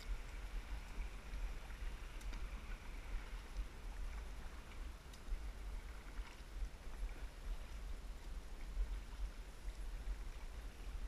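Kayak on the move down a shallow river: water rippling and lapping against the hull as it is paddled, under a low, unsteady rumble, with a few faint ticks.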